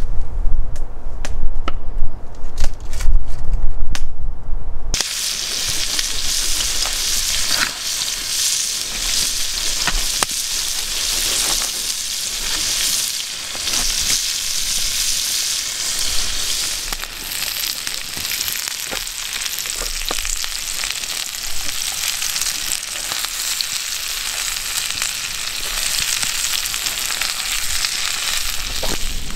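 Potatoes, onions, peppers and sausage frying in a pan over a small wood stove: a steady sizzle that starts about five seconds in. Before it, a loud low rumble of wind on the microphone.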